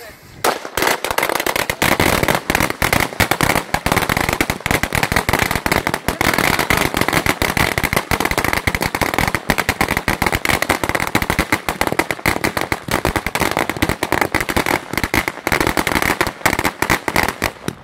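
A string of small firecrackers going off: a rapid, continuous crackle of bangs that starts about half a second in and stops just before the end.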